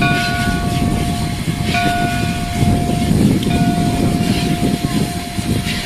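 Steam locomotive's chime whistle blowing several blasts, the last one long, over the low rumble of the moving train.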